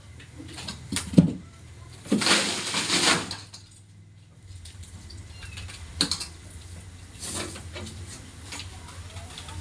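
Knocks, clicks and a scraping rasp of refrigerator panels and parts being handled while a two-door fridge's body is taken apart. The loudest part is a scrape about two seconds in, with sharp knocks about a second in and at six seconds, over a low steady hum.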